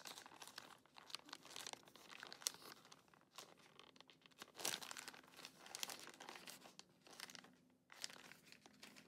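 Plastic candy packets crinkling as they are handled and turned over, in short irregular crackles and rustles.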